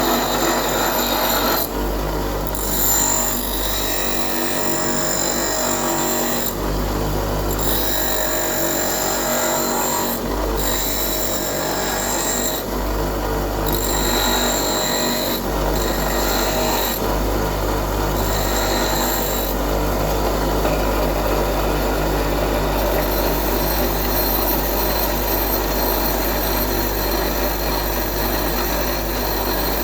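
A drill bit being sharpened on an electric grinder: the motor runs with a steady hum while the bit is pressed against the wheel in repeated passes, the grinding sound changing with each pass every few seconds.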